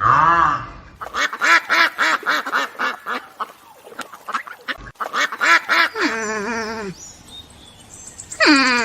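Ducks quacking in quick runs of short calls, joined by longer calls that slide down in pitch about six seconds in and again near the end.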